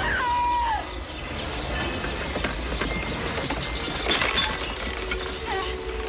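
Film sound effect of a swarm of sparrows: a dense rattle of rapid clicks and chirps over a low rumble, with a short falling cry in the first second.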